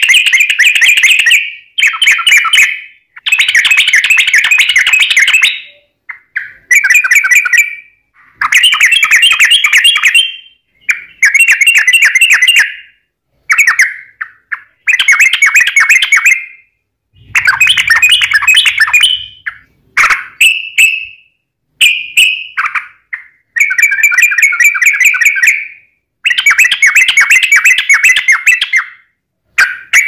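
Yellow-vented bulbul (trucukan) singing in full voice: about fourteen loud phrases of fast, bubbling, chattering notes, each a second or two long, separated by short pauses. This is the long rolling 'ropel' song that bird keepers use as a lure to set other bulbuls singing.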